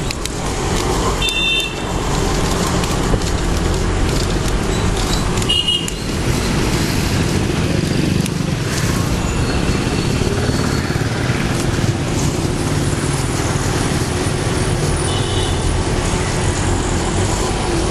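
Busy city street traffic with a steady low rumble, and short high-pitched vehicle horn toots about a second in and near six seconds, with a fainter one near fifteen seconds.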